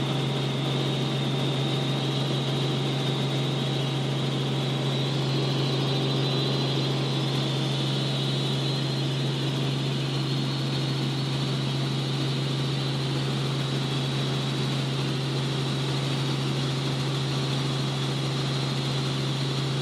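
Small helicopter in flight heard from inside the cabin: the engine and rotors make a steady, unbroken drone, with a strong low hum and a thin high whine above it.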